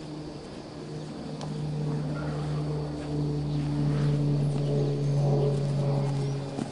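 A steady, low-pitched engine hum that grows louder through the middle and eases off near the end.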